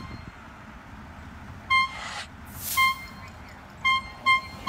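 A horn sounding in short, sharp toots: one about two seconds in, another about a second later, then two close together near the end. A brief rising hiss follows the first toot.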